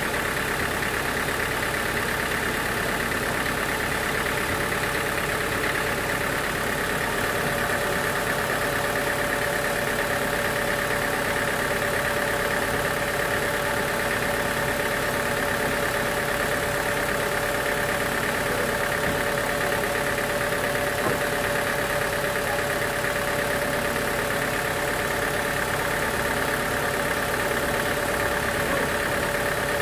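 Sawmill machinery running steadily: a continuous mechanical drone with a steady whine through it, unchanging throughout.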